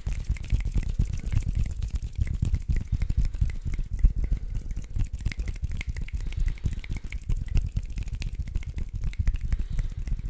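ASMR hand sounds: hands moving and rubbing in a dense, fast run of small rustles and crackles with heavier low thumps.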